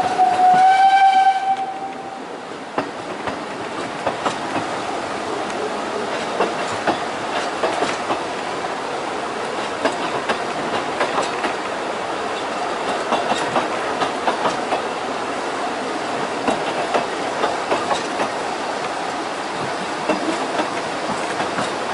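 Talyllyn Railway narrow-gauge steam locomotive's whistle, one long steady note that cuts off about two seconds in. Then the carriage runs on with a steady rattle and scattered clicks of wheels over the rail joints.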